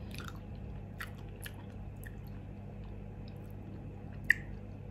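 Quiet mouth sounds of someone eating soft cheesecake from a spoon, with a few small clicks and one sharp click near the end.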